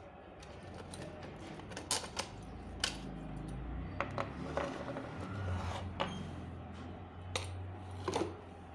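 Metal clicks and knocks of tools and ceiling-fan parts as the fan is taken apart and its screws removed, about eight sharp strikes scattered over a low steady hum.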